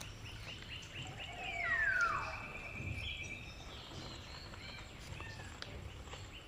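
Wild birds calling: a loud whistle gliding down in pitch about two seconds in, among fast runs of repeated high chirps. Underneath, water sloshes softly as clumps of aquatic weed are pulled out of the pond by hand.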